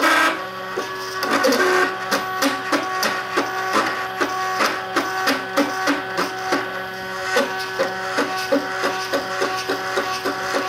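MakerBot Cupcake CNC 3D printer printing: its stepper motors sing in short pitched moves and clicks, a few per second, over a steady machine tone.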